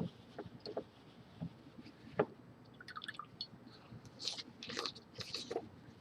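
A mouth chewing water-soaked facial tissues: scattered short, wet clicks and smacks, coming thicker in the second half.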